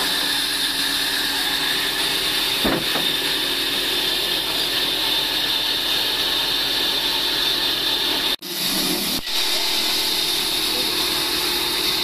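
Large band sawmill running steadily without cutting, a constant hum and whine. The sound cuts out briefly twice about two-thirds of the way through.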